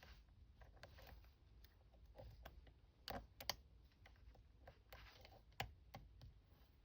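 Faint, irregular clicks of a lock pick and tension wrench working inside a challenge lock as it is picked, with a louder pair of clicks about three seconds in.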